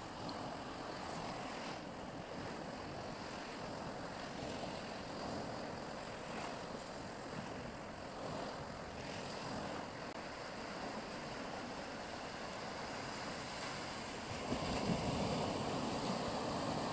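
Steady rushing noise of wind and sea surf, growing louder about three-quarters of the way in.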